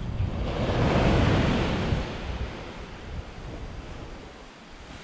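Surf breaking and washing up a sandy beach: one wave swells to its loudest about a second in and then eases off into a lower wash, with some wind on the microphone.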